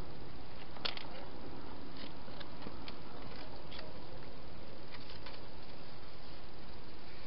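Wild hedgehog eating at a feeding station: irregular small crunching clicks, the sharpest about a second in, over a steady hiss.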